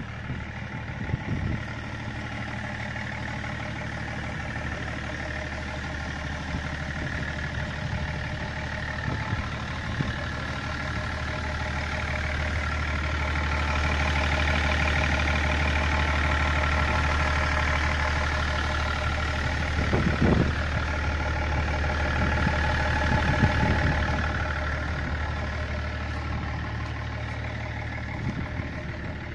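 BMW E39 530d's 3.0-litre straight-six turbodiesel idling steadily, louder for several seconds in the middle when close to the exhaust.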